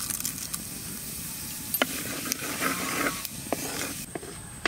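Cumin seeds sizzling and crackling in hot mustard oil in an earthen handi. From about halfway, a wooden spatula stirring them adds a few sharp knocks against the pot.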